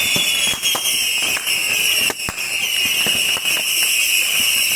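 Beehive fireworks: masses of bottle rockets firing continuously from a fireworks tower, a steady high shriek with many sharp bangs and cracks.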